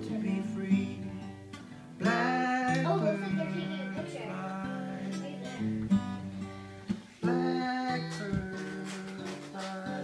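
Acoustic guitar playing, with a voice singing over it; new sung phrases come in about two seconds in and again about seven seconds in.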